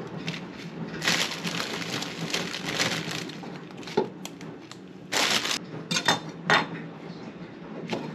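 Plastic salad bag crinkling as baby spinach leaves are pulled out by hand and dropped into a bowl, in irregular bursts of rustling that are loudest about five and six seconds in.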